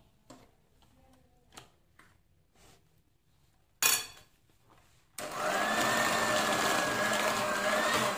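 Electric hand mixer switched on about five seconds in, running steadily with a high whine as its beaters whip butter and icing sugar into butter cream. Before it there are a few light taps and scrapes in the bowl, and a sharp knock just before the motor starts.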